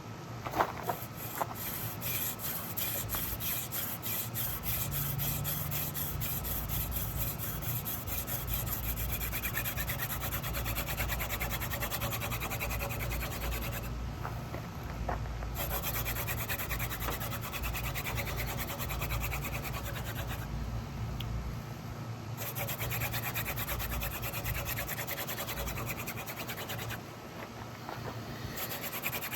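Hand drill for friction fire: a dogfennel spindle spun between the palms, drilling into a hard tulip poplar fireboard, giving a continuous scratchy rubbing of wood on wood and hands on the stalk. It breaks off briefly three times.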